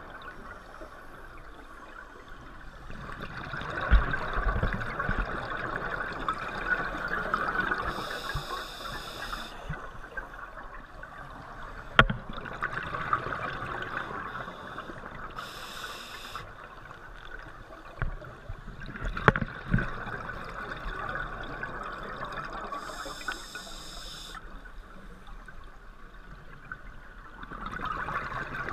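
Scuba regulator breathing underwater: a short hiss on each inhale, followed by a few seconds of bubbling exhaust on each exhale, repeating about every seven to eight seconds. A few sharp knocks come about 4, 12 and 19 seconds in.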